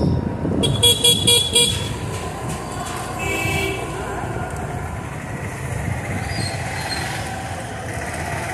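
Vehicle horns honking in street traffic: a quick run of about four short beeps about a second in, then another horn at about three seconds, over the steady low rumble of road traffic.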